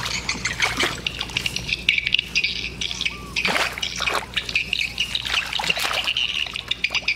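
Hands splashing and scooping through shallow muddy water among weeds: a run of irregular splashes, the biggest about three and a half seconds in.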